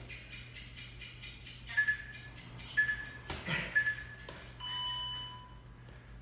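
Workout interval timer counting down: three short high beeps about a second apart, then one longer, lower beep marking the end of the interval. A soft thud falls between the second and third beeps.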